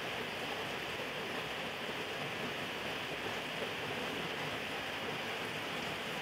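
Steady, even background hiss with no distinct sounds standing out.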